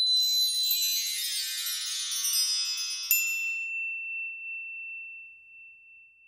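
Sparkly chime sound effect for an animated logo: a glittering cascade of many high bell-like tones spreading downward for about three seconds, then a single bright ding about three seconds in that rings on and fades away.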